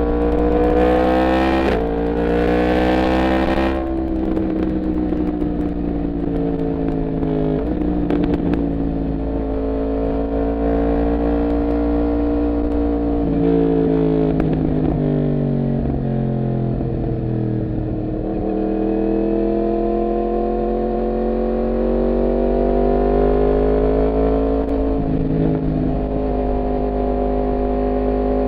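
Yamaha MT-10's crossplane inline-four engine under way, its pitch climbing and easing with the throttle, with several sudden pitch steps at gear changes. A steady low rumble of wind buffets the microphone, with a burst of hiss near the start.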